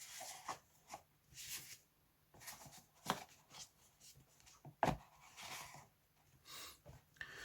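Faint rustling and handling of paper instruction leaflets and cards, with a couple of light taps about three and five seconds in.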